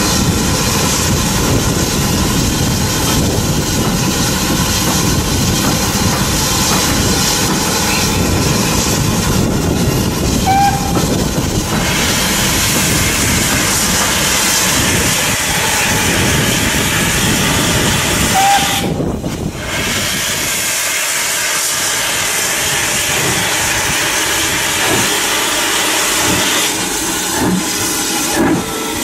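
Loud, continuous hiss of steam escaping from the open cylinder drain cocks of a BR Standard Class 4 2-6-0 steam locomotive as it draws slowly away, typical of a locomotive starting with its cylinders being cleared of water. The hiss thins briefly a little before two-thirds of the way through.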